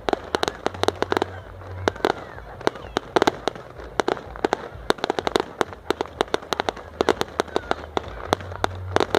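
Fireworks display: a rapid, irregular run of sharp bangs and cracks, several a second, without a break.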